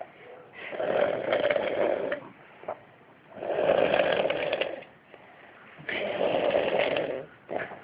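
A man snoring in his sleep: three long snores, each about a second and a half, coming roughly every two and a half seconds with quieter breathing between.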